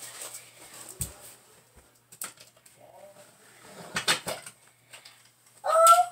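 Scattered rustling and knocking of things being handled, with a low thump about a second in. Near the end comes a short, loud, high-pitched cry that rises and then holds.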